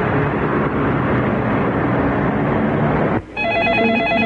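Steady city street traffic noise. About three seconds in, it gives way to an electronic telephone ring with a rapid warble.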